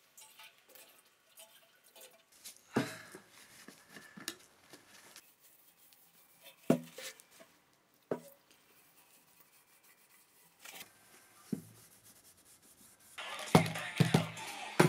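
Handling noises from work on a bare metal fuel tank: a few scattered knocks and taps a couple of seconds apart as the tank and tins are handled and wiped with a rag. Near the end comes a louder run of rustling with several knocks as a tin is set down on a wooden tabletop.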